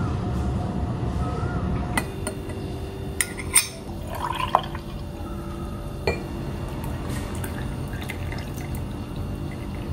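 Milk poured from a jug into a cup and a glass, with several sharp clinks of crockery and glass, over a steady low hum.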